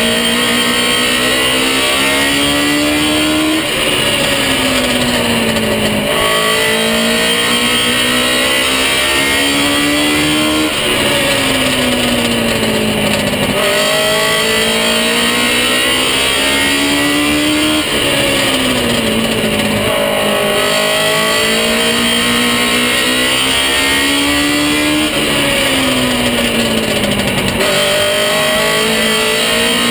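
Baby grand race car's engine at racing speed, heard from inside the cockpit: the revs climb along each straight and drop back into each turn, several times over.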